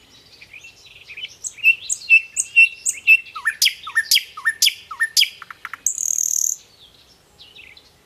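A small songbird singing a varied phrase. It starts with a string of quick high chirps, then gives four rapid sweeping notes, and ends with a short buzzy trill about six seconds in.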